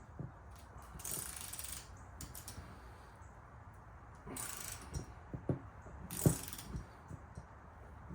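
Socket ratchet clicking in several short bursts, with a few metal knocks, as it cranks the centre bolt of a gear puller that draws the planetary gear assembly off an e-bike hub motor's shaft. The sharpest knock comes about six seconds in.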